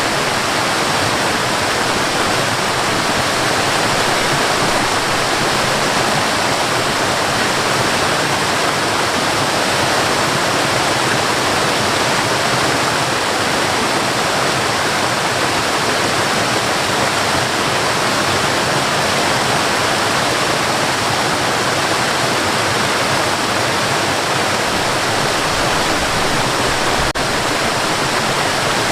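Waterfall and river water rushing steadily, a dense even wash of falling and flowing water.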